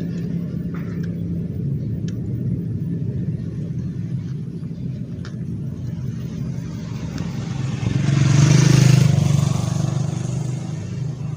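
Steady low motor rumble, with a motor vehicle passing close that swells up about eight seconds in and fades away over the next two seconds.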